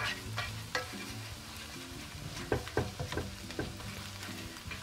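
A spatula scraping and tapping a nonstick pan in a string of short strokes, chopping scrambled eggs into small pieces, over a light sizzle of eggs frying on low heat.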